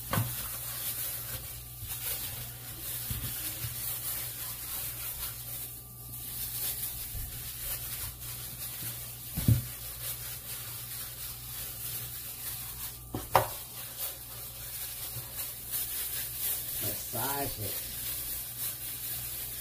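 Plastic-gloved hands rubbing and squishing oiled, seasoned raw ribeye steaks: a steady wet rubbing, broken by two sharp knocks about halfway through.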